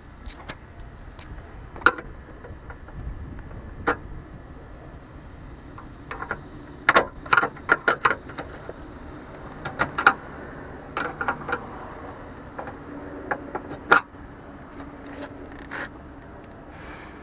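Irregular sharp clicks, knocks and small rattles of plastic and metal parts as a broken inside car-door handle and its lock linkage are handled and worked at. The clicks are busiest in the middle.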